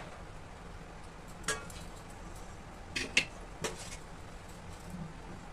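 Metal kitchenware clinking as it is handled: four short clinks, one about a second and a half in and three close together around three seconds in, over a low steady background.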